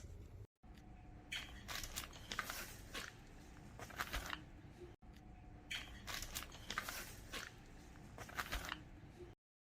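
Handling noise: crinkling with a series of sharp clicks and crackles. The same stretch of sound plays twice, with brief dropouts just under a second in and at about five seconds, and it cuts off near the end.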